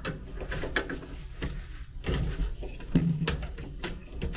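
Irregular clicks, rattles and knocks of wires and plastic connectors being handled in an air handler's wiring, over a steady low hum.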